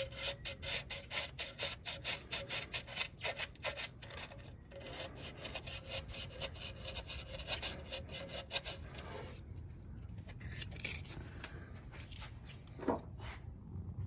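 Rapid back-and-forth rasping strokes of hand-cleaning a gasket surface while fitting the thermostat, about four strokes a second. They stop about nine seconds in, and a few fainter scrapes follow.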